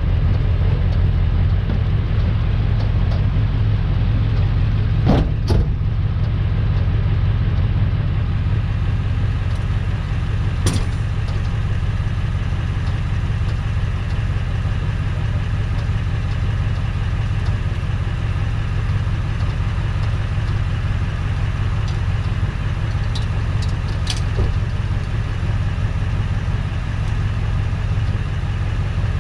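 Tow truck engine idling steadily, with a few brief sharp clicks about five, eleven and twenty-four seconds in.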